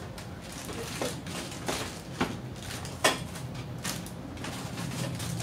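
Plastic packaging crinkling and small plastic toy pieces clicking as they are handled and set down, in about five short sharp sounds; the loudest click comes about three seconds in.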